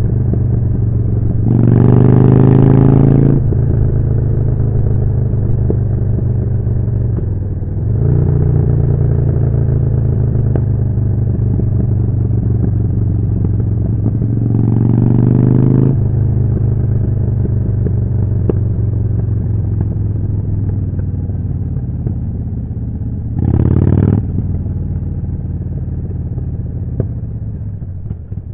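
Harley-Davidson Forty-Eight's air-cooled V-twin running through a Jekill & Hide exhaust under way, with three louder bursts of throttle where the note rises: about two seconds in, near the middle and about three quarters of the way through. It eases off and gets quieter near the end.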